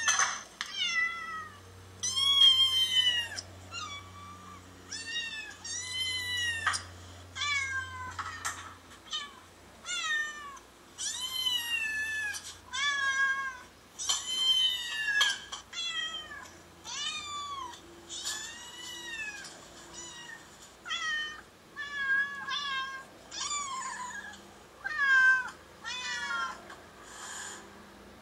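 Recorded cat meows played from a smartphone's speaker: a long series of separate meows, each a short call that rises and then falls in pitch, coming roughly one a second with brief pauses between groups.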